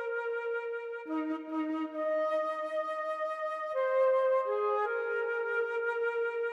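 Background music: a slow, calm flute melody of long held notes, with a second lower note joining about a second in.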